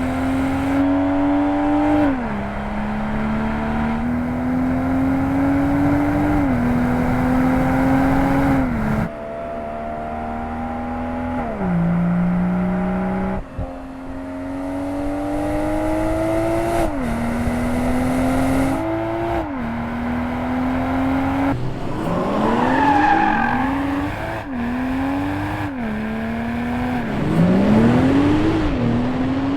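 BMW 2 Series Coupé engine and exhaust accelerating hard through the gears: the note climbs, drops sharply at each upshift, then climbs again. This repeats many times. In the last third the revs rise and fall more quickly.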